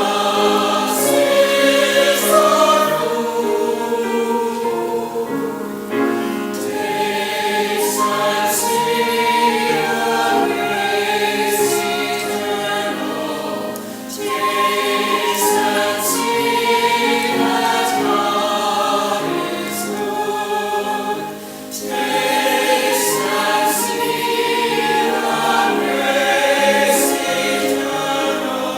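A choir singing a hymn in phrases, with short breaks between phrases about every seven or eight seconds.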